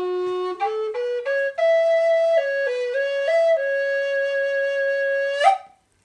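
Wooden Native American-style flute playing a short phrase: a quick run of rising notes, a few steps up and down, then one long held note that ends with a breathy puff about five and a half seconds in.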